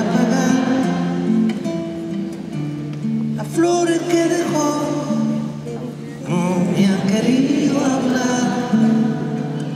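Solo live performance of a slow song: a man singing in Spanish over a plucked nylon-string classical guitar.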